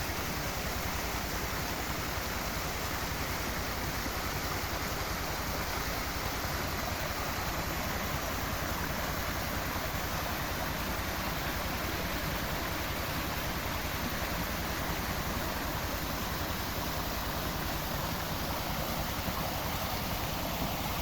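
Small hill stream flowing and splashing over rocks, a steady rush of water.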